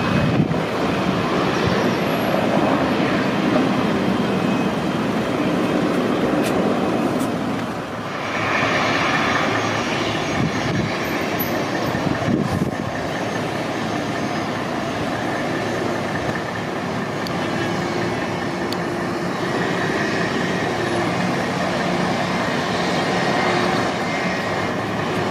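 Boeing 747's jet engines running at low thrust as the airliner taxis, a steady loud noise with faint steady tones running through it.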